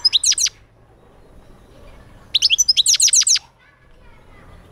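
European goldfinch twittering in two quick bursts of rapid, falling high notes: a short one at the start and a longer one of about a second just past the two-second mark.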